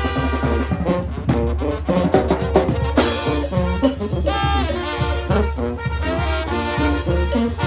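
Mexican brass band playing a chilena: brass carrying the melody over a steady drum beat.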